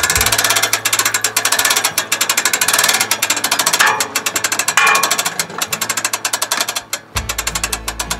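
Corner stabilizer jack of a Coleman Taos pop-up camping trailer being wound down, giving a fast, steady run of mechanical clicks that eases slightly near the end.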